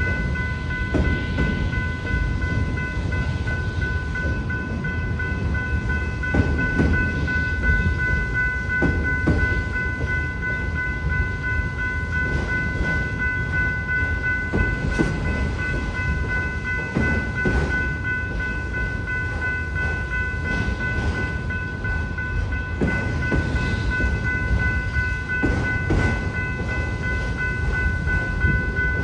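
Autorack freight train rolling slowly through a grade crossing, with a steady rumble and a wheel knock every few seconds. A crossing-signal bell rings steadily over it.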